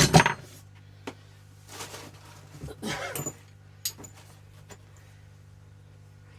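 Metal tools being handled on a hard surface: a loud clunk at the start, then quieter shuffling and scraping and a few light clicks.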